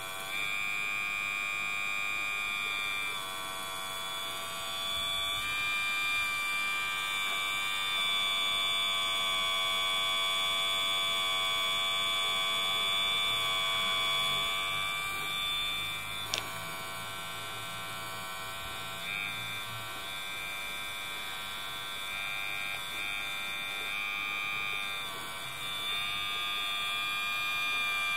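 Hydraulic pump of an RC O&K RH6 PMS model excavator whining steadily while the arm and bucket are worked, its pitch and loudness shifting every few seconds as the valves open and close. One sharp click about sixteen seconds in.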